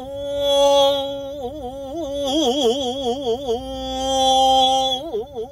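A man chanting shigin (Japanese classical poetry recitation) on long held vowels, alternating between a straight tone and a wide, regular wavering vibrato. The swaying vibrato is the habitual ornament his teacher told him to stop, which he takes as leaning too much on technique.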